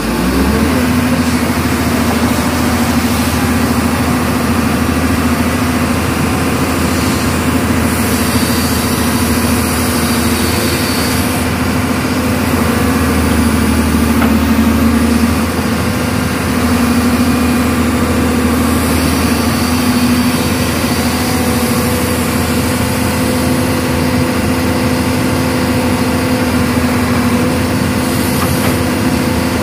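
Hyundai hydraulic excavator's diesel engine running steadily, a constant low drone with a steady humming tone.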